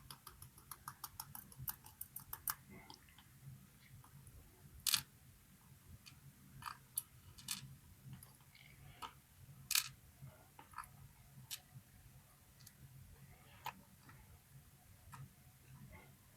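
Faint, scattered clicks and light taps of small metal lock parts and tools being handled. There is a quick run of ticks in the first couple of seconds, then sharper single clicks about five and ten seconds in.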